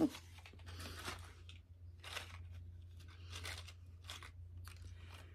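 Clear plastic press-on nail tray and its packaging being handled: scattered short crackles and crunches of stiff plastic, over a low steady hum.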